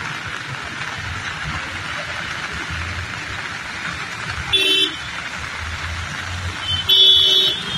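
Heavy rain hissing on a wet street with passing car traffic, and a vehicle horn honking twice: a short toot about four and a half seconds in and a longer one near the end.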